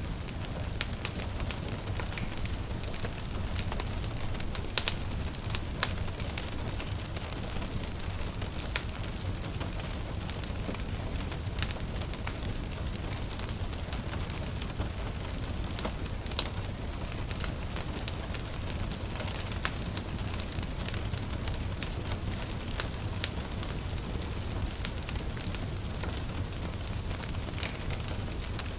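Wood fire crackling in a fireplace, with irregular sharp pops and snaps over a steady low rumble, and gentle rain pattering in the background.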